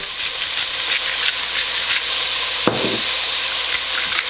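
Diced onion, carrot and celery frying in an enamelled cast-iron Dutch oven: a steady sizzle with fine crackling. A single sharp knock sounds about two-thirds of the way through.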